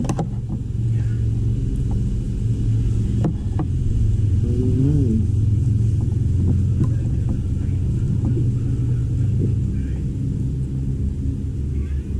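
A motor running steadily, giving a loud low rumble with a hum, joined by a few sharp clicks.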